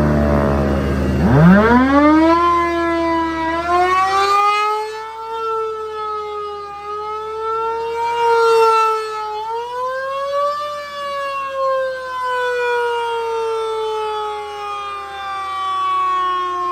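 Large single-horn electromechanical rotating siren winding up from a low growl about a second in to a loud wail. The pitch dips briefly and climbs again near the middle, then slowly sags toward the end. Its volume swells and fades as the horn turns.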